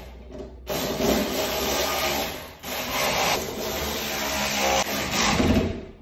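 Cordless drill running under load as it bores or drives a fastener into the wooden ceiling beam, going in long runs with a short break about half a second in and another past two and a half seconds.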